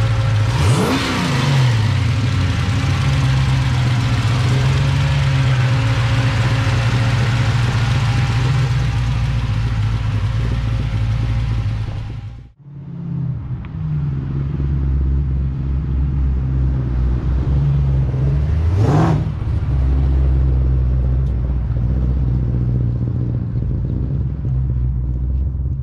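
A 454 cubic-inch V8 in a 1967 Chevrolet C10 pickup idles steadily. The throttle is blipped twice into a quick rev that rises and falls, about a second in and again near the end. The sound breaks off briefly midway.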